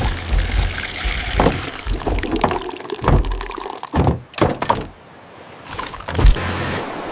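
A run of knocks and thunks over a pouring, splashing liquid sound, used as sound effects for a stop-motion animation.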